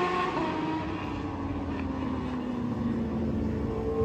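Racing superbike engine fading away along the straight, its pitch falling slowly as it goes. Near the end a second, higher engine note comes in and rises.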